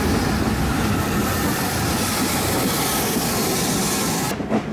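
Steam locomotive and its carriages passing close alongside: a steady rumble of wheels on rail under a continuous hiss. It cuts off suddenly near the end.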